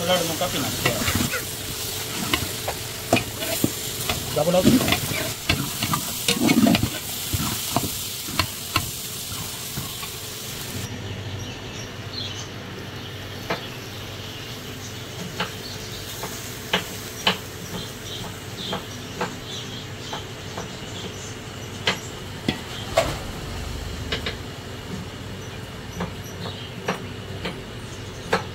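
Long metal spatula stirring and scraping shredded cabbage and carrot in a large aluminium pot, with frequent sharp clinks of the spatula against the pot's side. A high hiss runs under it and cuts off suddenly about eleven seconds in.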